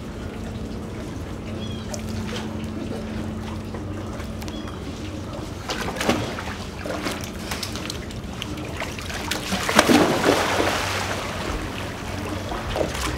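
Sea lions splashing and sloshing through shallow pool water around ice blocks, with a louder burst of splashing about ten seconds in, over a steady low hum.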